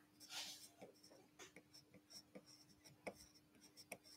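Pencil sketching on a wooden board: a run of faint, short scratchy strokes, over a faint steady hum.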